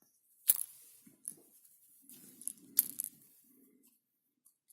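Small metal clicks and faint scraping from a pin-tumbler lock being worked by hand to get its spool pins out. There are two sharp clicks, one about half a second in and one near the three-second mark, with lighter ticks between them.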